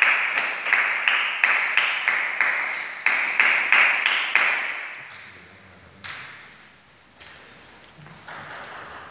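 Table tennis ball bounced repeatedly on a hard surface, about three sharp pings a second, each ringing briefly. The bouncing stops about halfway through, and a few single ticks follow.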